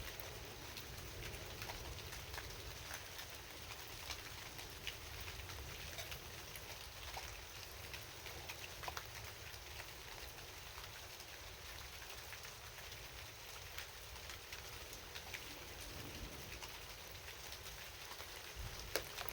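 Rain falling at night: a steady hiss of rain with many separate drops ticking sharply on a surface.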